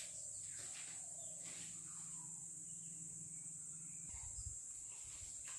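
Faint background noise: a steady high-pitched hiss over a low hum, with a few soft low thumps about four seconds in.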